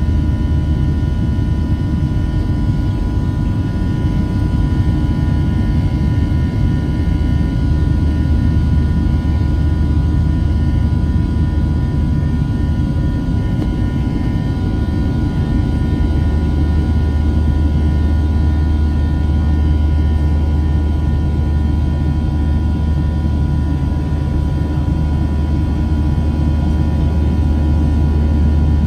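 Boeing 737-700 jet engines heard from inside the passenger cabin: a deep, steady rumble with several faint, steady whine tones above it.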